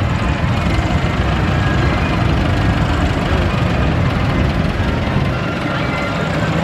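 Vintage tractor engines running steadily as several Massey Ferguson and Fordson tractors drive slowly past, a low continuous engine drone. Near the end a Massey Ferguson 698 passes close by.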